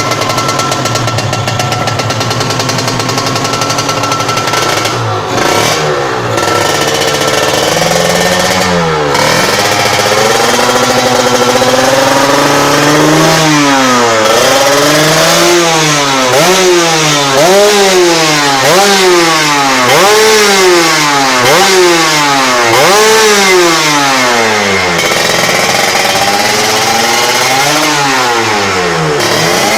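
Kawasaki Ninja two-stroke motorcycle engine running: it idles steadily, then from a little before halfway it is revved over and over, the pitch rising and falling about every second and a half, before settling back near the end.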